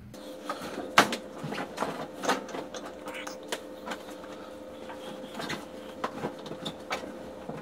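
Clothes being handled and pulled out of an open clothes dryer: irregular clicks and knocks as fasteners and fabric hit the metal drum, over a steady hum.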